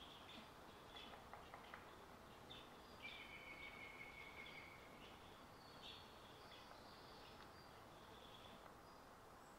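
Faint birdsong: scattered short chirps and calls, with one whistled note held for about two seconds near the middle, over a quiet background hiss.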